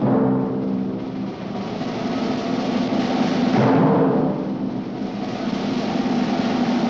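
Orchestral TV theme music: timpani and drums under held chords, swelling about four seconds in.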